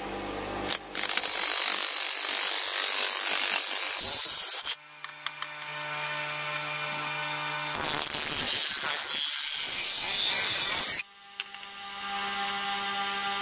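Bench grinder's grey abrasive wheel grinding the steel blade of a rusty cleaver, a harsh hiss in two stretches of about three seconds each. Between them and near the end the blade is off the wheel and the motor runs free with a steady hum.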